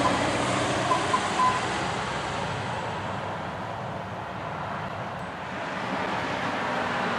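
Front-loader garbage truck engine running steadily as the truck approaches, growing louder near the end. A few short high beeps about a second in.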